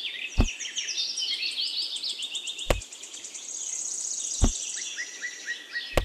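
Many small birds chirping and twittering, with a fast high trill in the middle. Four sharp clicks stand out, about every two seconds.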